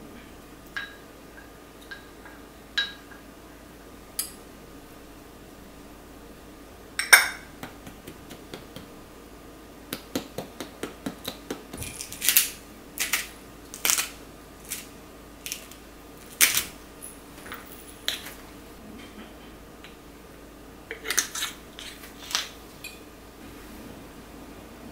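A wooden spoon clinks and scrapes against a glass jar and a small glass bowl as pesto is scooped out and stirred into oil. There are scattered sharp knocks, with a run of quick taps in the middle.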